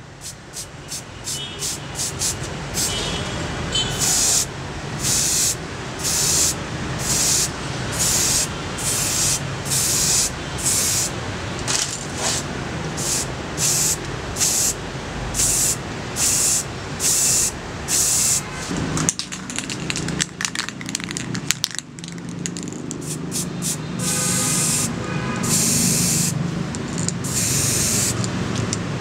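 Aerosol spray-paint can spraying the scissors in short repeated bursts, each about half a second to a second of hiss. After a brief pause with a few clicks about two-thirds of the way through, longer bursts follow near the end.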